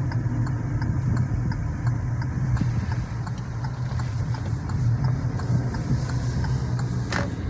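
Car engine and road noise heard from inside the cabin while driving: a steady low hum with faint, regularly spaced ticks.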